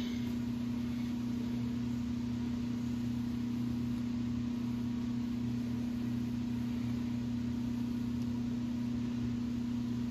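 Steady low electrical hum with a faint hiss, like a running motor in a machine shop. The level is even throughout, with no cutting sounds.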